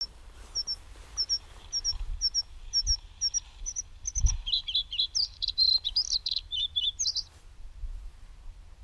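Small songbirds: a high double chirp repeated about twice a second, then a fast, varied warbling song that stops about seven seconds in. A low rumble runs underneath, with a soft thump about four seconds in.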